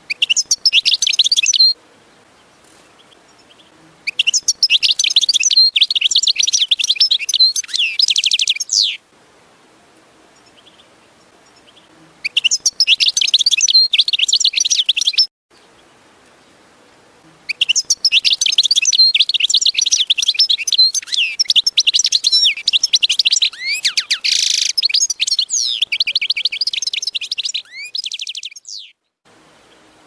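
European goldfinch singing: four bouts of rapid, high twittering song, the longest running about eleven seconds in the second half, with short pauses between bouts.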